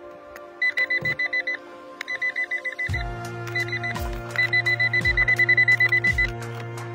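Handheld metal-detector pinpointer beeping in three quick runs of high, evenly spaced beeps, about nine a second, signalling metal in the rock it is pressed against. The longest and loudest run comes a little past halfway. Background music plays underneath, and a bass line and steady beat come in about three seconds in.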